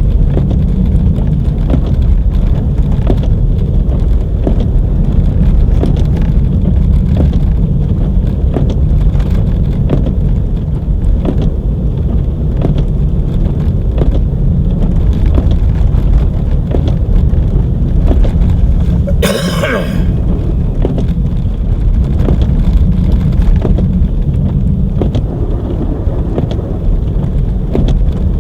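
Car driving on a snow-covered road, heard from inside: a steady low rumble of tyres and engine with many small ticks and clicks over it. About two-thirds of the way through, a brief high-pitched squeal stands out for under a second.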